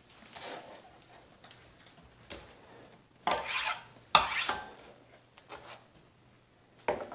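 A chef's knife scraping across a cutting board, sweeping diced raw chicken into a stainless bowl, with light taps of the blade. Two louder scrapes come a little past three and four seconds in, and a sharp knock comes near the end.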